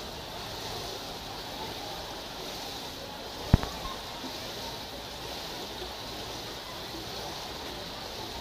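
Steady background hiss, with one sharp click about three and a half seconds in.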